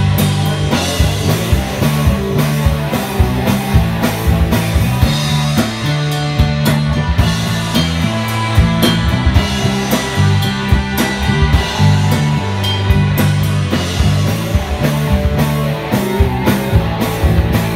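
Rock band playing live: drum kit, electric bass guitar and electric guitar together, with the bass notes and drum hits loudest.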